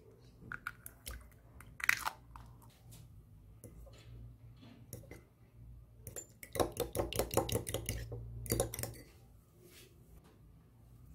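A fork beating a raw egg in a small glass bowl: rapid, regular clicking of the fork against the glass, about five strokes a second, for a couple of seconds in the second half. Before it, a few separate sharp taps and cracks as the egg goes into the bowl, the loudest about two seconds in.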